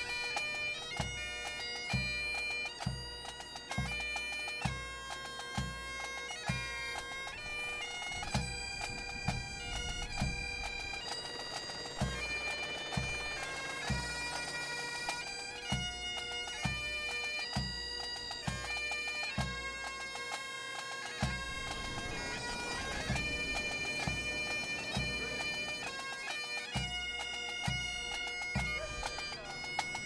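Pipe band playing: bagpipes sounding a tune over their steady drone, with a bass drum beating a steady pulse.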